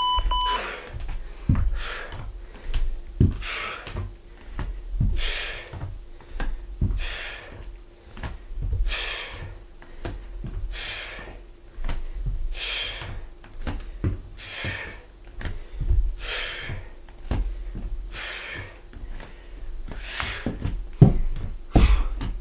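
Bare feet thudding on a wooden floor in a steady rhythm of step-back lunges, with a sharp exhale about every two seconds. An interval timer beeps once at the start. Near the end come a few louder knocks as hands and feet land on the floor.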